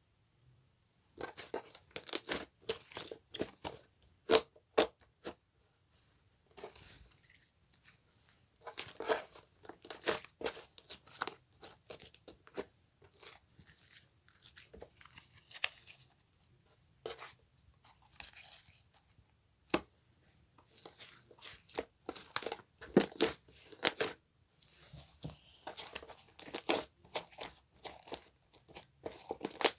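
Crinkling and tearing of a thin material such as paper or plastic, with sharp clicks and taps coming in irregular spells separated by short pauses.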